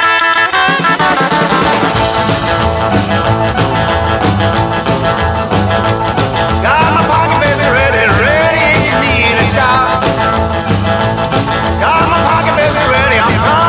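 Rock and roll band playing the start of a song: a ringing chord, then the full band comes in with a driving, steady beat, and a bending lead melody line joins about seven seconds in and again near the end.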